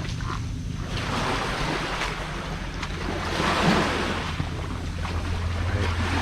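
Waves washing on the shore, with wind buffeting the microphone; the wash swells about three and a half seconds in.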